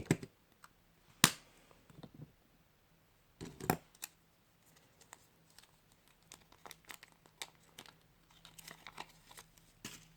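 Kinder Surprise toy and its small plastic wrapper being handled by hand: crinkling and rustling with sharp clicks, the loudest about a second in and another a little before four seconds, then a run of small crackles.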